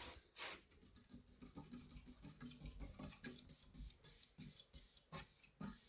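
Casablanca Delta II ceiling fan running, heard only faintly: a soft, quick ticking, several ticks a second, over near silence.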